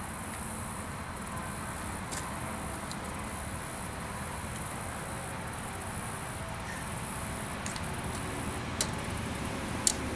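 Outdoor ambience of insects buzzing high-pitched and pulsing, over a low rumble of wind on the microphone, with two sharp clicks about a second apart near the end.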